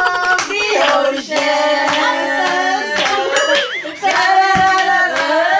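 A voice singing long, held, gliding notes over music, with scattered hand claps.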